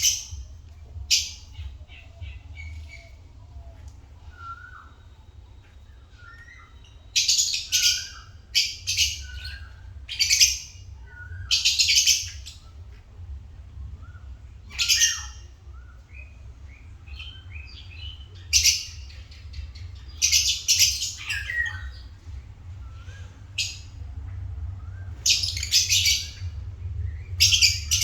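Lovebirds calling: short, shrill screeching calls in irregular clusters, with softer chirps between them, over a steady low hum.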